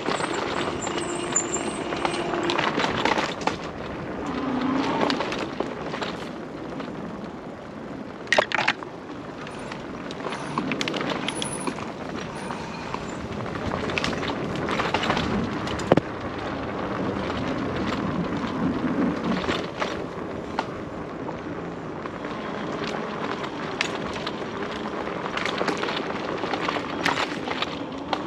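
An e-bike rolling over a rough trail: a steady rush of tyre noise with frequent clicks and knocks as it jolts over bumps, the sharpest knocks at about 8 and 16 seconds in.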